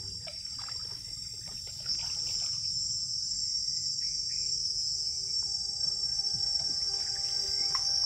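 Steady high-pitched insect chorus from the jungle, growing louder about two seconds in. Soft background music with held notes comes in about halfway through.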